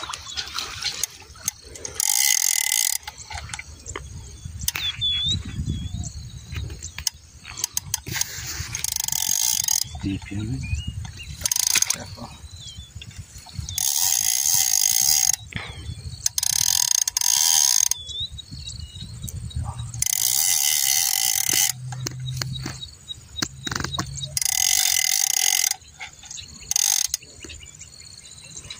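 Carp fishing reel sounding in about eight ratcheting bursts of a second or two each, as a hooked carp is fought and reeled in toward the net.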